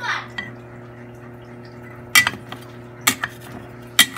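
A spoon knocking against a cooking pot of pork chop adobo as it is stirred: three sharp clinks about a second apart, over a steady low hum.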